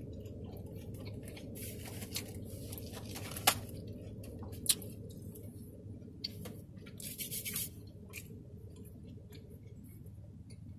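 Paper food wrapper rustling and crinkling in short bursts as the food is handled, with two sharp clicks about three and a half and nearly five seconds in, over a steady low hum inside a car.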